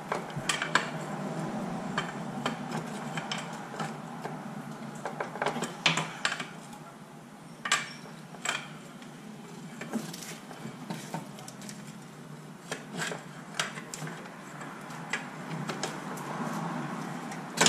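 Steel pry bar clinking and scraping against the axle's inner joint and the transaxle case in irregular metallic clinks and knocks, as a stuck front axle shaft is pried out of the transaxle.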